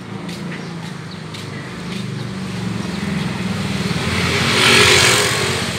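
A motor vehicle's engine drawing closer and passing near by, growing steadily louder to a peak of engine and road noise close to the end, then easing off.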